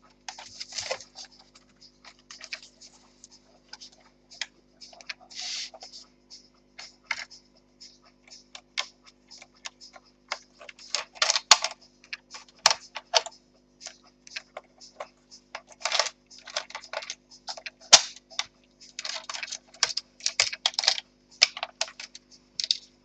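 Irregular small plastic clicks, taps and short scrapes as the parts and cables of an opened Acer 5541G laptop are handled, over a faint steady hum.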